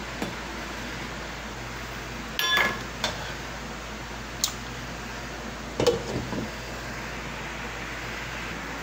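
Cookware clinking: a stirring utensil and a glass pot lid knocking against a stainless steel soup pot a handful of times, the loudest about six seconds in, over a steady hiss.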